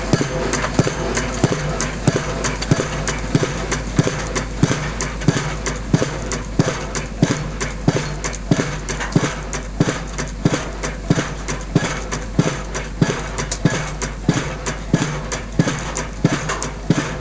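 Piling rig's hammer striking a precast concrete pile in a rapid, even rhythm of sharp blows, a few a second, driving it into the ground, with the rig's engine running steadily underneath.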